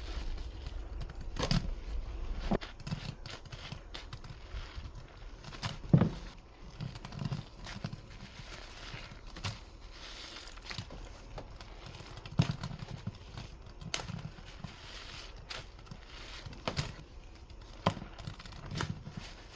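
Sponge and thick dish-soap suds being squeezed by hand: irregular wet squelches and crackling foam, with scattered sharp clicks and a few louder thumps, the loudest about six seconds in.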